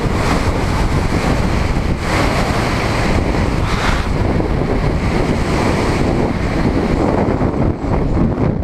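Loud, steady rush of airflow over a helmet camera's microphone during wingsuit flight.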